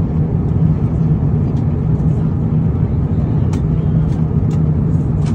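Steady cabin noise inside an Airbus A350-900 in cruise: an even low rumble of engines and airflow, with a few faint clicks.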